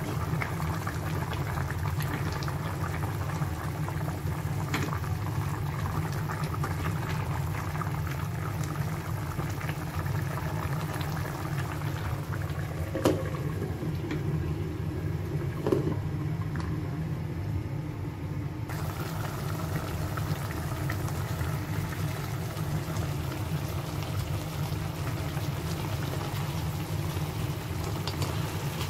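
A pot of chicken afritada, a thick tomato-sauce stew, bubbling steadily at a simmer. About halfway through come two sharp clinks as a glass pot lid is set on.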